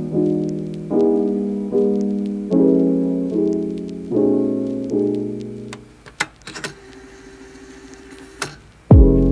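Background piano music, a chord struck roughly every 0.8 seconds. It breaks off about six seconds in, leaving a quieter stretch with a few sharp clicks, and a new, louder piece of music starts near the end.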